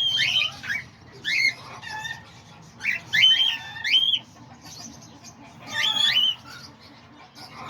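Cockatiels calling: short whistled calls that jump up and down in pitch, coming in clusters near the start, around three to four seconds in and again around six seconds in.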